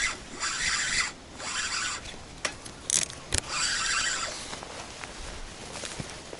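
Spinning reel being cranked in short bursts, a raspy grinding whir, as a hooked fish is reeled in. A few sharp clicks come in the middle.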